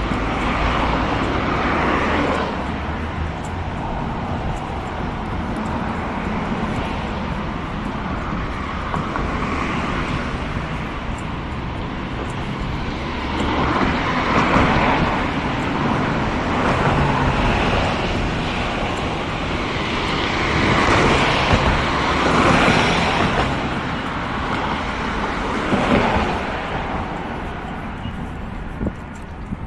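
Road traffic noise: a steady rumble with vehicles passing in several swells of a couple of seconds each.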